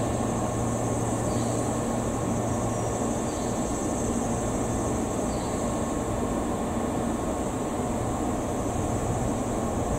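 Steady low hum and rumble of electric train equipment running at a railway station, with no train moving.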